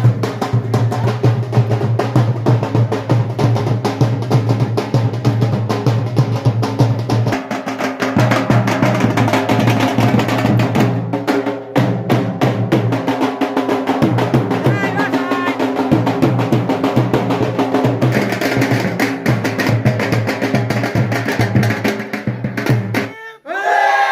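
Upbeat music with a busy, driving drum and percussion beat. It cuts off abruptly near the end, and a group of people starts shouting.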